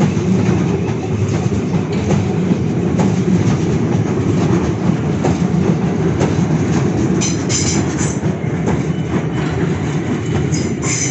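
Train running along the platform at speed: a loud steady rumble with wheels clicking over rail joints. Brief high squeals come about seven seconds in and again near the end.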